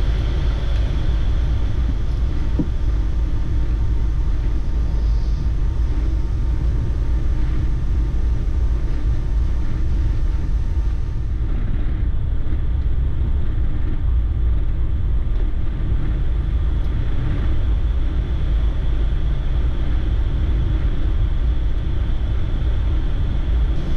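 Steady low rumble in the cockpit of a Boeing 787-8 as it taxis. The faint high hiss above the rumble drops away about halfway through.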